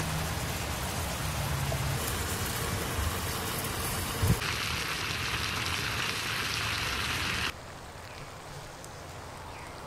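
Chicken thighs and vegetables sizzling in a skillet over a campfire, with a brief knock just after four seconds in. The sizzle drops to a quieter level about three-quarters of the way through.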